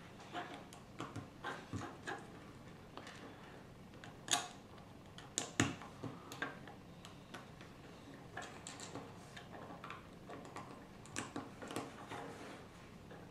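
Small plastic Lego pieces clicking and tapping as they are picked up off a wooden table and pressed together, in irregular scattered clicks, with two louder clicks about four and five and a half seconds in.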